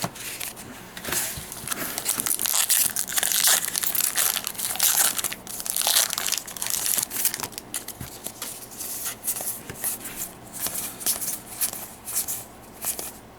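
Crinkling and tearing of a Magic: The Gathering booster pack's foil wrapper as it is ripped open, a dense irregular crackle that is busiest in the first half and thins out later.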